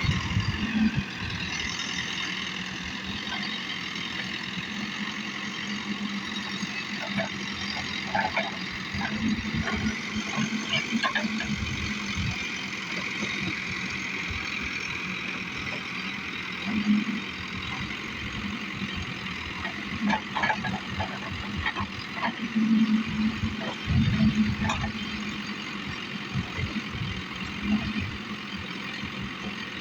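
A JCB backhoe loader's diesel engine running steadily under work, with a high whine that rises slowly partway through. Scattered knocks and heavier thuds come at intervals, several of them in the second half.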